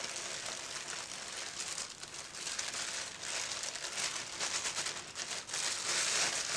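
Packaging of powdered sulfur being opened and handled over a sieve: irregular rustling, loudest near the end.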